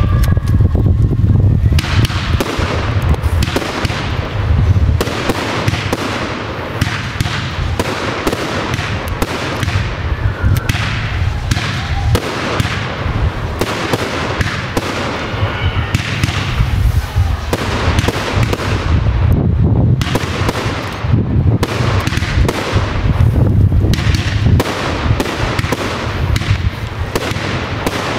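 Professional fireworks display fired from a single position: a rapid, continuous barrage of shots and bursts, deep thumps under crackling, with no real pause.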